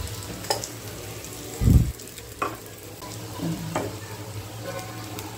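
Dosa batter sizzling in ghee on a hot griddle, a steady frying hiss, with a few sharp clicks and one louder dull thump a little under two seconds in.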